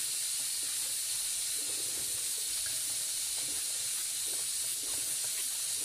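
Soft, irregular strokes of a plastic whisk stirring an oil-and-vinegar dressing in a stainless steel bowl, faint under a constant high hiss.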